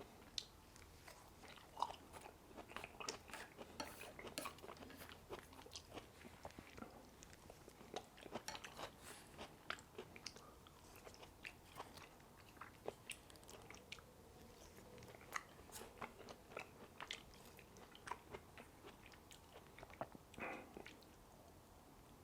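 A person chewing a whole mouthful of food close to the microphone: faint, irregular wet clicks and smacks, with a slightly longer soft sound near the end.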